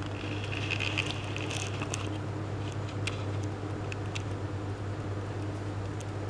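Steady low hum with a few faint clicks scattered through it.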